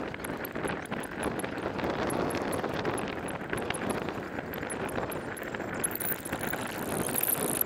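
Wind rushing over the camera microphone: a steady, even rush of noise with no distinct events.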